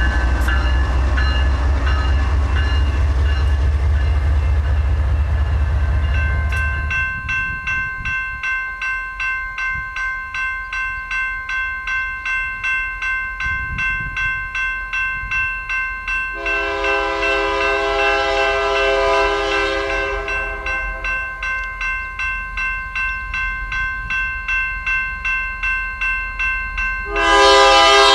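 BNSF diesel freight locomotive passing close with a heavy low rumble. Then a bell rings steadily, about one and a half strokes a second, while an approaching BNSF diesel locomotive sounds its air horn: one blast of about three and a half seconds midway, and a louder one starting just before the end.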